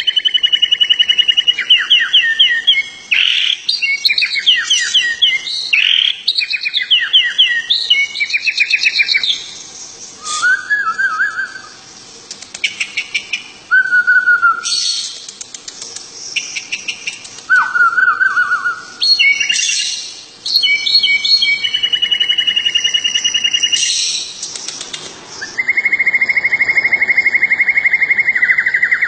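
A hand-held songbird singing: fast rattling trills and chattering phrases, broken by a few lower, short whistled notes, and ending in a long, even trill.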